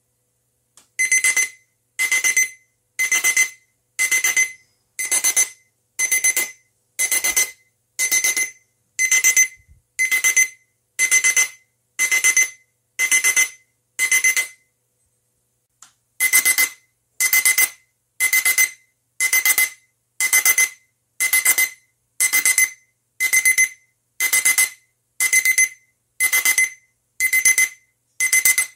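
High-voltage arc from a single-MOSFET flyback driver, modulated by an alarm clock chip-on-board circuit so that the arc sounds the alarm's beeping. About one high, buzzy beep a second, each about half a second long, with one short pause about halfway through.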